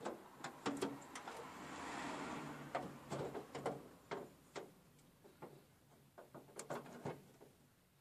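VW T4 Transporter door lock mechanism being worked by hand into the door's sheet-metal cavity: a series of irregular metallic clicks and knocks as it bumps the panel, with a scraping noise through the first three seconds or so.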